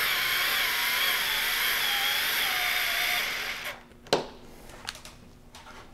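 Small Bosch cordless power screwdriver running as it drives a screw, its whine wavering in pitch as the load changes, for about three and a half seconds before stopping. A single sharp click follows about half a second later, with a few faint ticks after.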